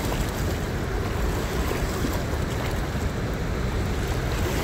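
Wind buffeting the microphone with a steady low rumble, over small waves washing against a rocky shoreline.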